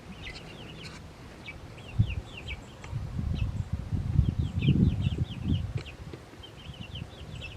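Young chickens, about eight weeks old, peeping steadily in quick, falling chirps, several a second. A low rumble swells up through the middle.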